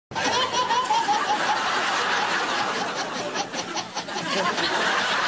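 A baby laughing hard in quick repeated bursts, amid dense laughter.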